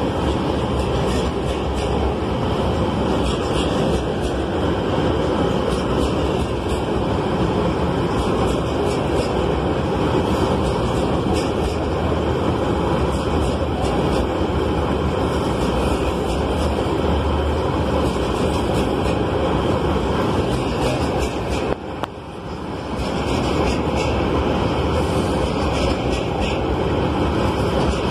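Loaded hopper wagons of a long freight train rolling past close by: a steady heavy rumble of steel wheels on rail with light clicks over it, dipping briefly about three quarters of the way through.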